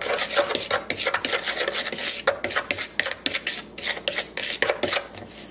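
A spoon stirring a dry spice mix in a small dish: a quick, continuous run of scraping strokes.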